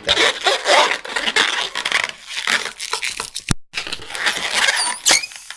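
Latex 260Q modelling balloon squeaking and rubbing as it is twisted and stretched by hand, with a single sharp click about three and a half seconds in.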